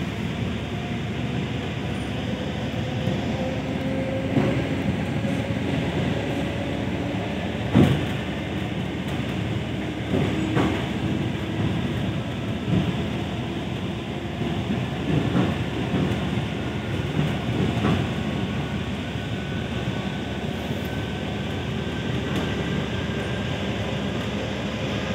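ED4M electric multiple unit running on the line, heard from aboard: a steady rumble of wheels on track with a faint whine over it and occasional rail-joint knocks, the sharpest about eight seconds in.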